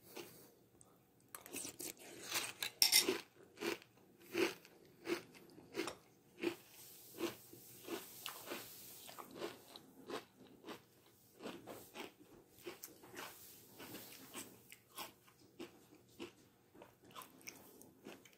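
A mouthful of Catalina Crunch honey graham cereal with milk being chewed up close: a steady run of crisp crunches, about one every two-thirds of a second, starting a second or so in.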